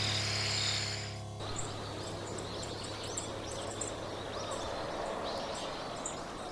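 Small songbirds chirping in many short calls over a steady background hiss of outdoor ambience. For about the first second and a half, a low held tone and a steady high trill also sound, then stop abruptly.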